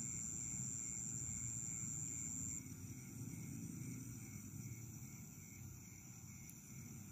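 Night insects chirping: a steady high-pitched trill that drops away about two and a half seconds in, over a softer, evenly pulsing chirp.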